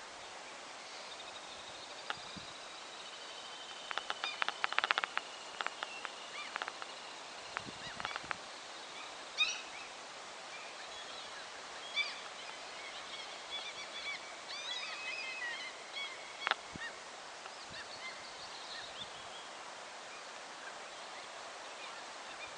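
Wild birds calling and chirping in short high notes scattered throughout, busiest about four to five seconds in, over a steady faint outdoor hiss.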